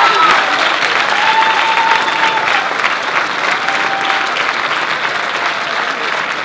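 Theatre audience and cast applauding together, steady dense clapping that eases off slightly toward the end.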